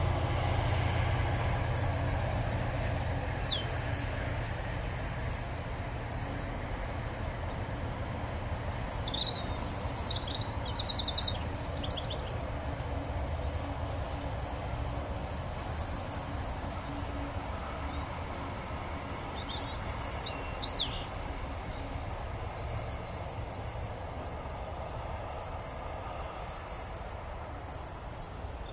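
Distant container freight train rumbling steadily past, slowly fading away. Songbirds chirp over it a few times: about four seconds in, around ten seconds in, and about twenty seconds in.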